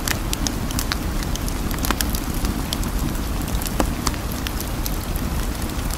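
Steady rain: an even, constant noise with a deep low rumble, scattered with many sharp drop ticks.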